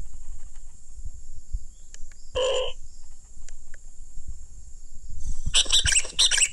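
A steady high-pitched buzz, with a short call about two and a half seconds in. Near the end comes a quick cluster of crackling and crunching of dry leaves and twigs as a bird-call player is set down on the leaf litter.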